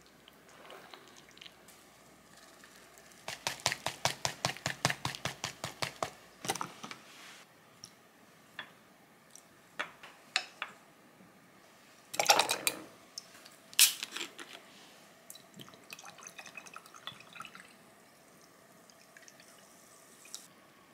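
Kitchen handling sounds at a counter. First a rapid, even run of clicks, about eight a second, lasting some three seconds. Then wet scrapes and a sharp clink as sliced pickles are spooned from a plastic tub into a small bowl with a wooden spoon, and near the end a faint crackle as water is poured from a plastic bottle into a glass.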